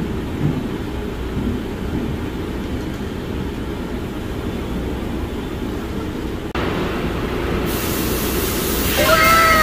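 Steady low rumble of a moving vehicle. About six and a half seconds in it breaks off abruptly and comes back brighter, and near the end a few tones glide downward in pitch.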